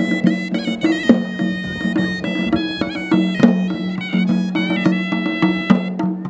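Sri Lankan horanewa, a double-reed shawm, playing a wavering, reedy melody over a steady low drone, with drum strokes beating several times a second.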